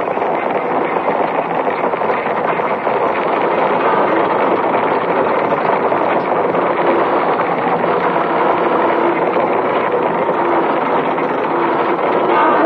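Steady, dense machine-like noise with a fine rapid grain and faint held tones within it.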